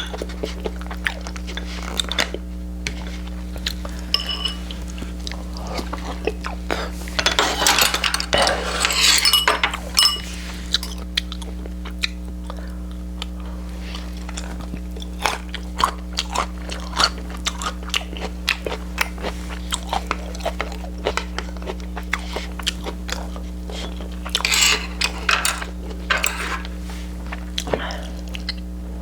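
A person eating close to the microphone: chewing and crunching food, with utensils clicking against dishes. There are louder, noisier stretches about seven seconds in and again near twenty-five seconds, over a steady low electrical hum.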